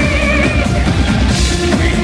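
A live industrial rock band playing loud, recorded on a phone in the audience: a drum kit and heavy bass throughout. A high wavering melodic line ends about half a second in, and a bright splash of high sound comes about a second and a half in.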